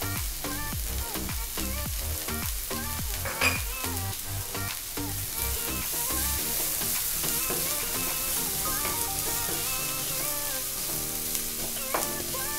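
Chopped onions, green chillies and curry leaves sizzling in hot oil in a nonstick kadai, stirred and scraped with a wooden spatula as the onions fry toward golden brown. Soft background music with shifting notes plays underneath.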